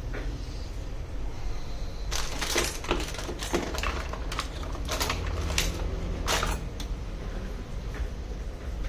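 A run of light clicks and taps from small hard objects being handled on a work surface, over a steady low hum.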